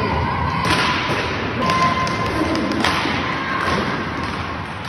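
Inline hockey play: a few sharp knocks of sticks and the puck against the rink floor and boards, the clearest about three, over a busy background.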